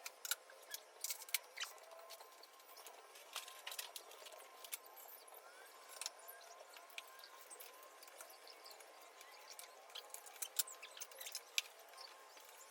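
Hand tools clinking on metal while parts are taken out of a car's engine bay: scattered light clicks and taps at an irregular pace.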